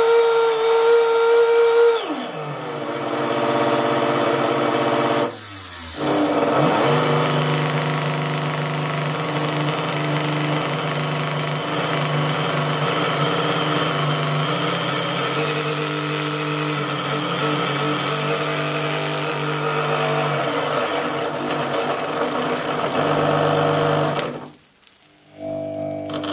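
Small brushed universal motor running overvoltaged: a high whine drops in pitch about two seconds in, cuts out briefly, then runs on at a lower pitch with a hiss from the brushes arcing at the commutator, before stopping suddenly near the end as the motor burns out.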